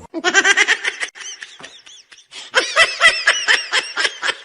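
High-pitched laughter in quick, rapidly repeated pulses, in two runs with a short break between them.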